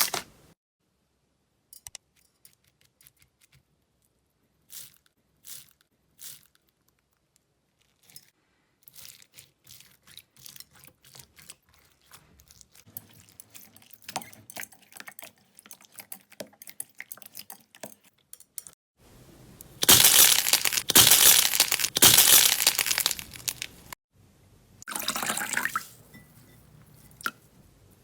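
Slime being squeezed, poked and stretched by hand: scattered sticky clicks and pops at first, then a long run of dense quiet crackling, then a few seconds of loud wet squishing about two-thirds of the way in, and two shorter loud squishes near the end.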